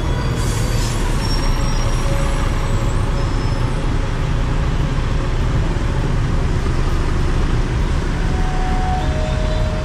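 City bus engine running as it passes, over a steady rumble of street traffic, with two short hisses near the start.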